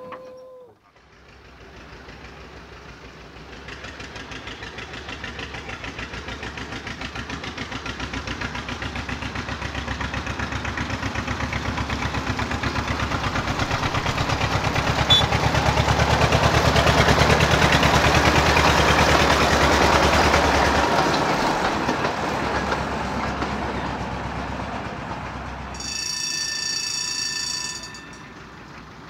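A narrow-gauge quarry train approaches and passes, its running and wheel noise with a fast rhythm swelling for about eighteen seconds and then fading away. A short tone sounds at the very start, and a shrill whistle blows for about two seconds near the end.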